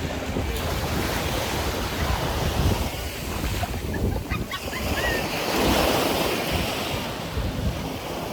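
Sea waves breaking and washing up the shore, with wind buffeting the microphone; the surf swells loudest about six seconds in.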